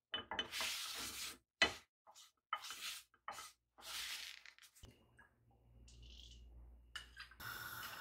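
A crumpled paper towel rubbed and scraped in quick strokes around a non-stick frying pan, wiping out the burnt bits left from frying. Near the end a steady sizzle starts as the next raw fish fillet goes into the hot pan.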